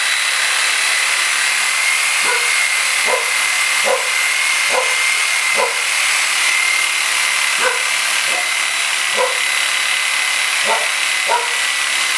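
DeWalt reciprocating saw running steadily with a thin, high whine as it cuts through a frozen turkey. A dog barks about ten times over it, at irregular intervals.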